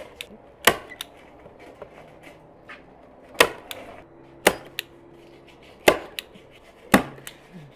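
Hand-held manual staple gun firing staples through foam padding into a wooden chair seat board: about six sharp snaps, irregularly spaced, some followed by a smaller click.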